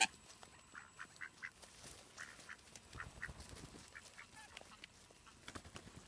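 A flock of American coots giving many short, faint calls, scattered unevenly, while they crowd in to feed on bread. There is a sharp click right at the start.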